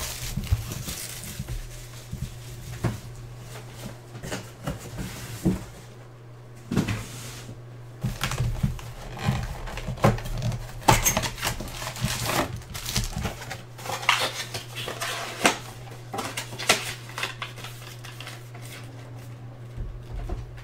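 Shrink-wrap crinkling and cardboard rustling, with scattered taps and clicks, as a 2018 Diamond Kings baseball card box is unwrapped, opened and its packs are set down, over a steady low hum.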